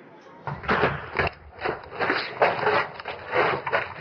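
An irregular series of sharp cracks or knocks, about two to three a second, each with a short ringing tail.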